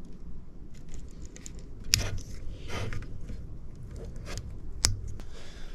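Small plastic lever-nut wire connectors being handled and snapped onto wires: light rustling and ticking, with two sharper clicks, one about two seconds in and one near the end.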